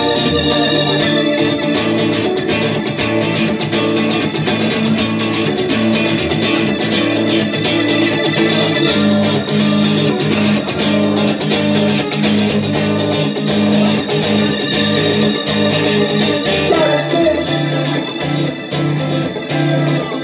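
Live rock band playing an instrumental passage: electric guitar over keyboard and drums.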